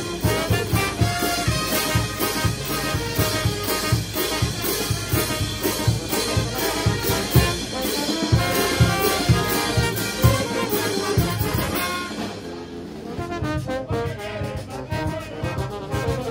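Brass band playing a dance tune: trumpets, saxophones and sousaphones over a steady beat of bass drum and cymbals. The playing drops back briefly about twelve seconds in, then picks up again.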